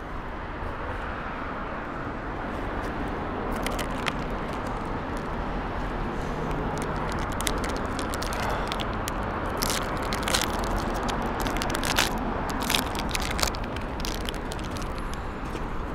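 A snack wrapper crinkling and crackling in the hands as it is opened, in irregular sharp crackles that grow denser towards the end, over a steady hum of street traffic.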